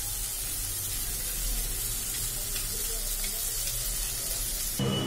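Tomato and spice masala sizzling in oil in a kadai over a gas flame, a steady hiss as the paste is fried down (the bhuna stage, before any water is added). Background music cuts in just before the end.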